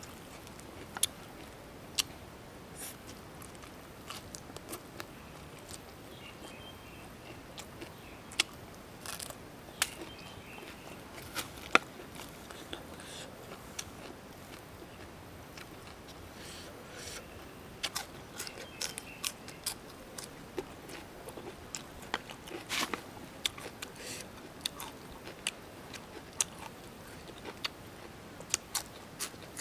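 Close-up crisp crunching and chewing of raw lettuce leaves, with sharp individual bites scattered throughout and thickest about two-thirds of the way in.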